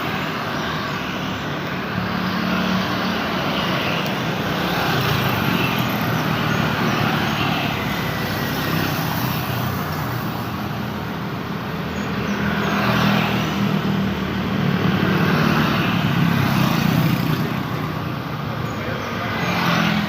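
Continuous road traffic: cars and motorcycles passing in a steady stream, the noise swelling as vehicles go by, most strongly about two-thirds of the way through.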